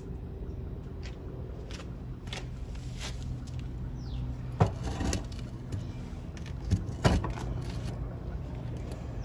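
A few sharp metal clicks and knocks as a hand takes hold of the loose engine and carburetor of a 1968 Honda CT90, loudest about five and seven seconds in, over a steady low hum. A bird gives one short falling chirp about four seconds in.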